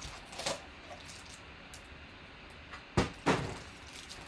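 Trading-card packs being pulled from their box and handled, with two sharp knocks about three seconds in, a third of a second apart, as a pack is set down on the table.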